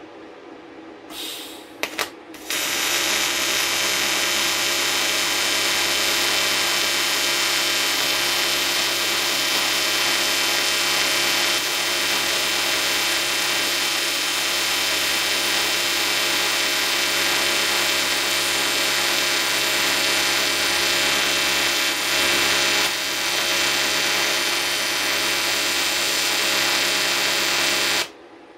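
AC TIG welding arc on aluminium. After a couple of short bursts as it strikes, the arc buzzes steadily for about 25 seconds, then cuts off sharply near the end.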